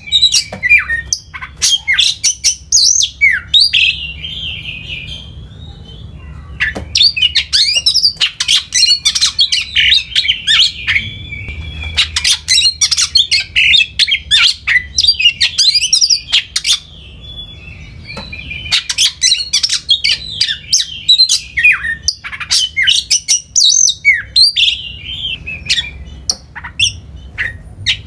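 Songbird singing in long, rapid phrases of chirps, trills and squawky notes, broken by two short pauses.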